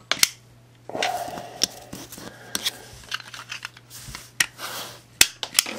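Plastic Transformers Prime Bulkhead Happy Meal toy being handled: a handful of sharp clicks from its one-click disc launcher being cocked and fired, with scratchy rustling of plastic and the cardboard disc in between.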